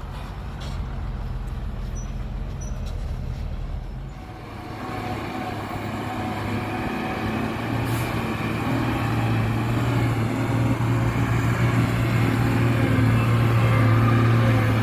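Heavy diesel engine of construction machinery running. About four seconds in it drops briefly, then a deeper engine note builds and grows steadily louder, as under load.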